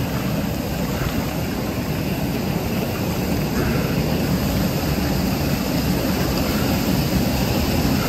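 Waterfall pouring into a creek pool: a steady, unbroken rushing noise.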